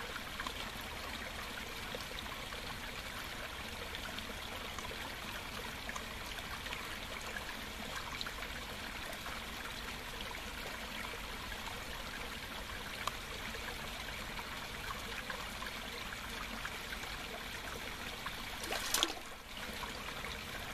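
Steady trickle of running water into a backyard pond, with one brief louder burst of noise near the end.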